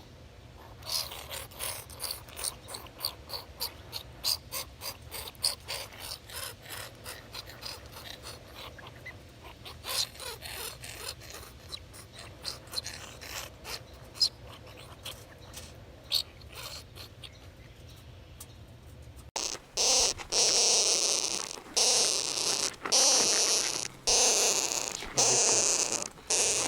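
Skunk vocalising: many quick, faint clicks and chirps, then, after a cut about 19 seconds in, a much louder run of repeated noisy bursts, each about a second long, breaking off sharply.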